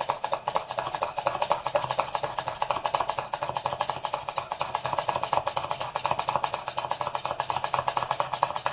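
Hand pin drill boring through cured UV resin into polymer clay: a rapid, even scraping tick as the bit cuts into the resin, several times a second.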